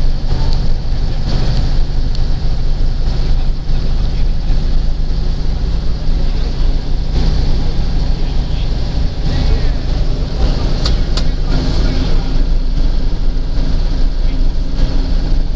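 The diesel engine of a vintage Jelcz 'ogórek' bus running steadily as the bus drives along, heard from inside the passenger cabin as a continuous low rumble. Passengers' voices mix in.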